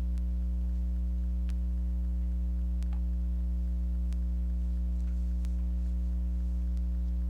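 Steady electrical mains hum with a stack of overtones, unchanging throughout, with a few faint light ticks scattered through it.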